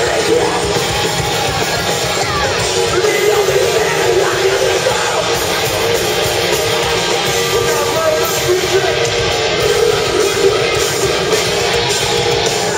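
A heavy metal band playing live, loud and continuous, heard from within the audience.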